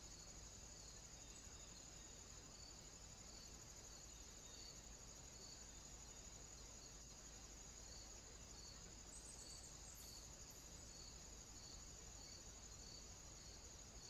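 Faint, steady high-pitched insect chirring from crickets, with a softer chirp repeating about once a second.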